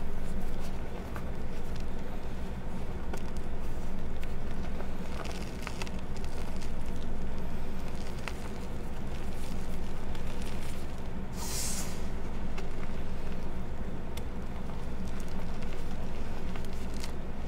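Reformed gym chalk discs being crushed: scattered crackles and gritty crunches, with one louder crunch about two-thirds of the way through, over a steady low hum.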